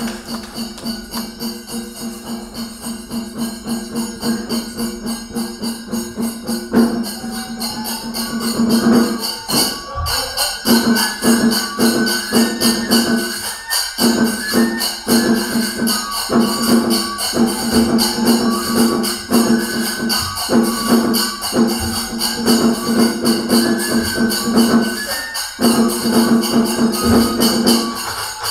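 Kagura folk music: rapid, continuous clashing of small hand cymbals, joined about eight seconds in by a bamboo transverse flute playing a high, stepping melody.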